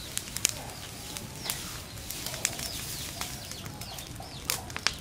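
Dry stalks crackling with irregular sharp pops as they burn in an earthen stove, with birds calling in the background.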